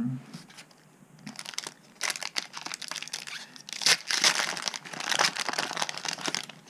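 Foil wrapper of a Yu-Gi-Oh Circuit Break booster pack being torn open and crinkled by hand. After a couple of seconds of light handling clicks, the crinkling starts, is loudest about four seconds in, and dies away near the end.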